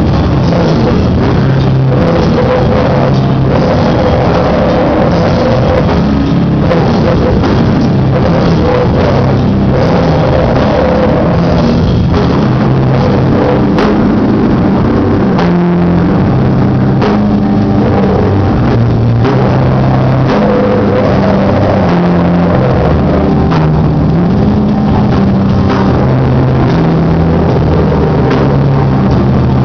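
A loud live rock band: electric guitar playing a low riff that steps between notes, over a drum kit, with a vocalist at the microphone.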